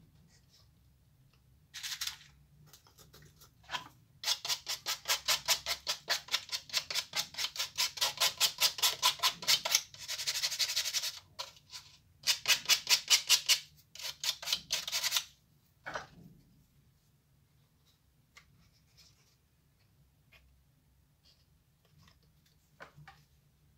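Hand sanding: a small wooden strip rubbed quickly back and forth on a sanding block, about three to four scraping strokes a second, in runs of a few seconds with short pauses between them.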